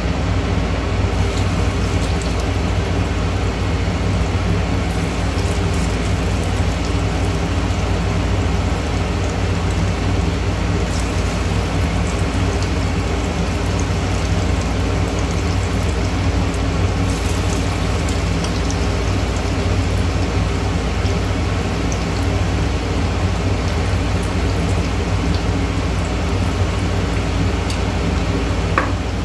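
Coated chicken pieces shallow-frying in hot oil, sizzling steadily, over the steady drone of a kitchen chimney (range hood) exhaust fan.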